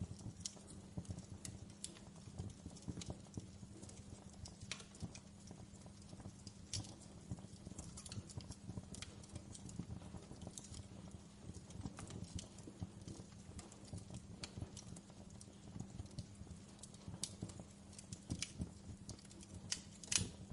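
Wood fire crackling in a fireplace: irregular pops and snaps of varying loudness over a steady low hum, with a brief cluster of louder pops near the end.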